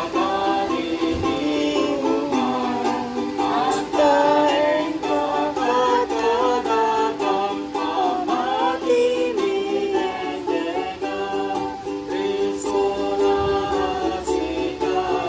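A small group singing a hymn together, accompanied by a strummed ukulele.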